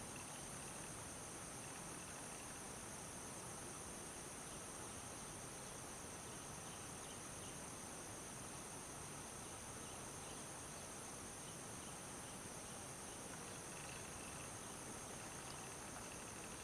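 Faint, steady chorus of insects trilling at a high pitch without a break, with a few faint short chirps now and then.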